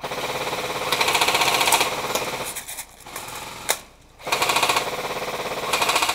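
Airsoft electric gun firing long full-auto bursts, a fast even rattle: one burst of about two and a half seconds, a single sharp click, then a second burst of about two seconds.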